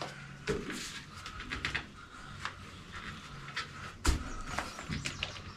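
Truck trim parts being handled and fitted by hand: scattered light clicks and taps, with one sharper knock about four seconds in.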